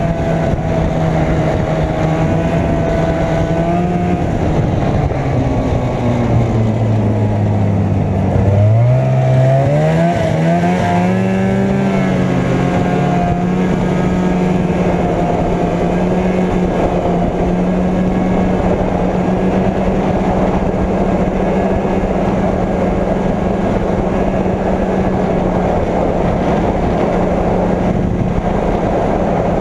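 Arctic Cat Jag 440 snowmobile's two-stroke engine running steadily under way. About five seconds in, the engine note falls as the sled slows, then from about nine seconds it climbs back up as it speeds up again, and it holds steady after that.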